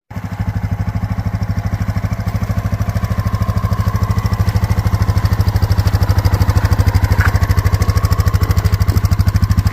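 Honda XR650L's single-cylinder four-stroke engine idling, an even, steady thump of about a dozen beats a second.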